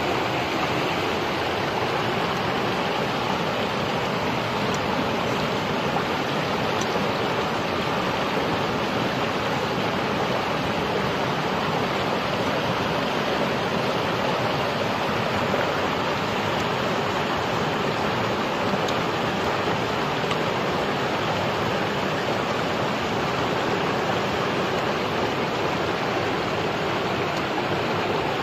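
Running water of a shallow stream, a steady rushing that holds an even level throughout.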